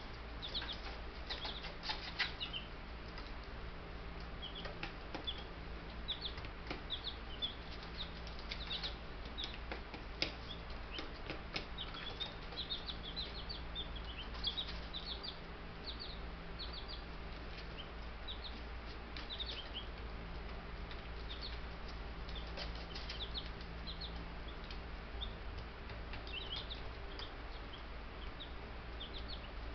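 Baby Buff Brahma chicks peeping: many short, high chirps scattered throughout, with a few sharp clicks over a steady low hum.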